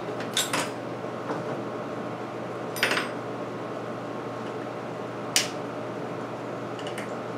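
Scattered clicks and clinks of a screwdriver and small metal parts against a chainsaw's plastic side cover and the bench, as the cover with its stuck chain tensioner is taken apart. The loudest are about three and about five and a half seconds in, over a steady background hum.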